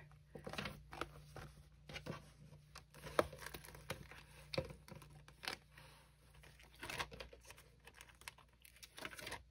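Faint handling noises of a leather cash-envelope binder being opened and its clear plastic zip envelopes leafed through: soft crinkles and light taps scattered throughout.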